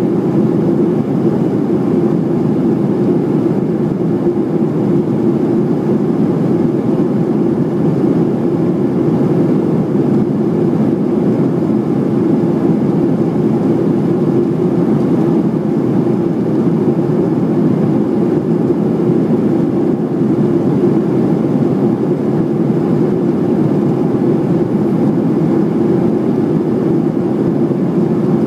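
Cabin noise inside a Boeing 737-700 in flight, heard from a window seat by the wing: the CFM56-7B turbofan engines and the rush of airflow make a constant, loud drone with a steady low hum running through it.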